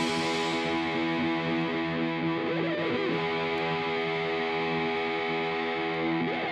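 Outro music: a distorted electric guitar chord held and ringing steadily, with no drums.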